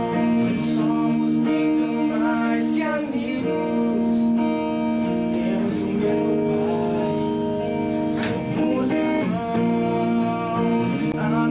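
A Christian pop-rock song playing: a singer over strummed acoustic guitar and a band accompaniment.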